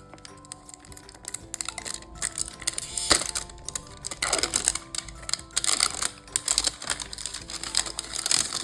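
Rapid crackling, crinkling and clicking of plastic toy packaging being handled and torn open, loudest from about two seconds in, over light background music.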